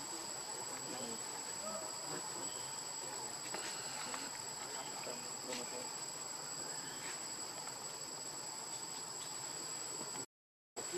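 Steady, high-pitched drone of insects in the forest, with a thin continuous whine above it. It cuts out for about half a second near the end.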